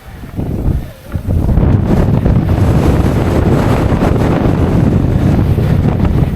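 Strong wind buffeting the microphone: gusty at first, then a heavy, steady low rush from about a second in.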